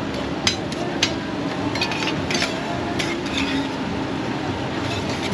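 Metal spatula clinking and scraping on a flat steel griddle, with two sharp clinks in the first second and scrapes after, over steady market crowd noise.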